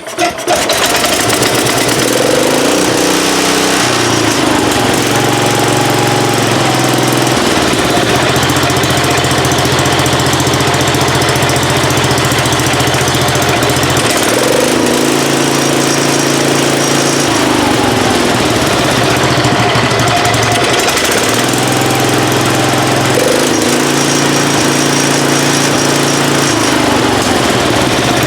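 Lawn tractor's small four-stroke engine catching right away and running steadily, its speed stepping up and down several times. It is running again, its crank-no-start fault cured.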